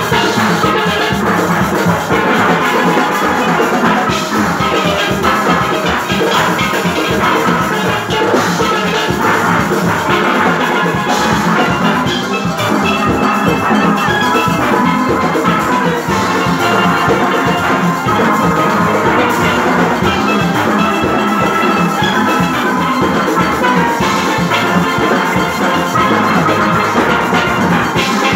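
A youth steel orchestra playing live: many steelpans sounding together in a fast, continuous arrangement over a steady drum and percussion beat.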